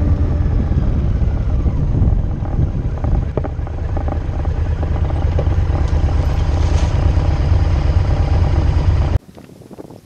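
Motorcycle engine running close by, under a heavy low rumble. It cuts off abruptly about nine seconds in, leaving much quieter roadside sound.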